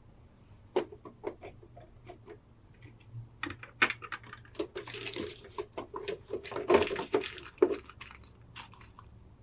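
Clear plastic blister tray crackling and clicking as hands handle it and lift a figure out, with its translucent wrapping rustling. The sound starts as scattered clicks about a second in and builds to denser crinkling through the middle before thinning out near the end.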